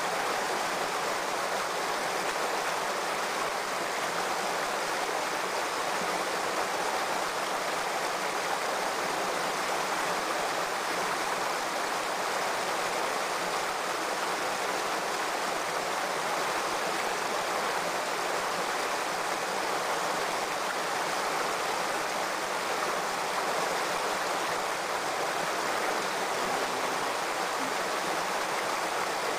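Water of a shallow rocky stream running steadily over and between stones.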